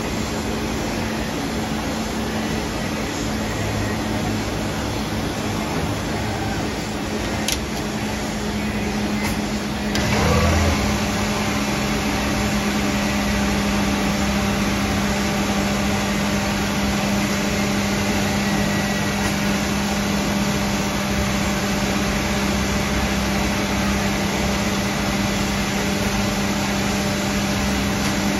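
EMCO Turn 425 MC CNC double-spindle lathe running with a steady mechanical hum. About ten seconds in there is a short low knock, and a louder hiss joins the hum and continues.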